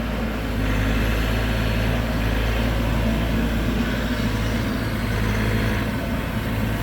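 Bobcat E42 mini excavator's diesel engine running steadily while digging, getting slightly louder about a second in.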